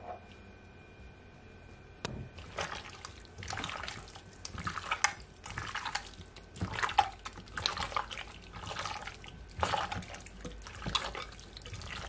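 Wet squelching and smacking of a bare hand squeezing and turning raw goat meat chunks coated in a wet blended-herb paste and dry seasoning in a glass bowl. It starts about two seconds in and goes on in irregular squishes, several a second.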